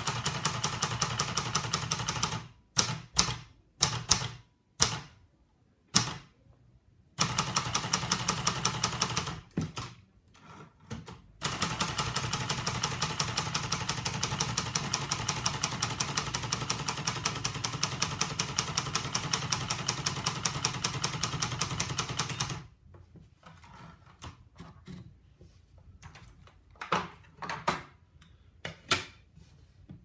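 Hermes Baby portable typewriter being typed on: long runs of rapid, evenly spaced key strikes, with a few louder single clacks between the first runs. Near the end there are a few softer knocks.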